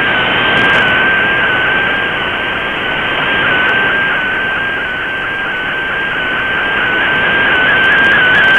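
MFSK digital picture transmission from a shortwave broadcast, heard through a shortwave receiver in AM mode. A single data tone holds nearly steady with small flickers in pitch as the image lines come in, over a bed of shortwave static hiss. The signal swells and fades gently.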